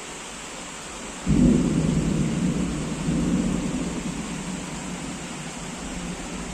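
Heavy rain hissing steadily. About a second in, a thunderclap breaks suddenly and rumbles on, swelling again briefly, then slowly dies away under the rain.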